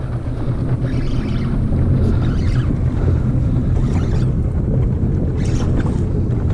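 Steady low rumble of wind buffeting the microphone on a boat at sea, with the wash of choppy water and a few faint, brief splashes.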